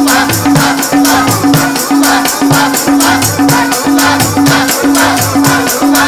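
Sikh kirtan music: harmonium and tabla accompany group singing, while a hand-held rattle is shaken in a fast, steady beat of about five or six strokes a second.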